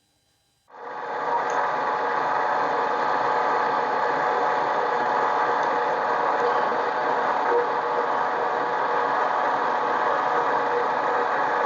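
Harbor Freight mini lathe running, its motor and gear train giving a steady mechanical whir that starts up quickly about a second in and holds level.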